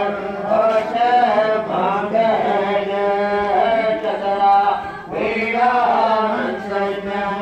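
Sanskrit mantras being chanted for the sacred-thread ritual around the fire altar: a steady, droning chant with held notes and a brief pause about five seconds in.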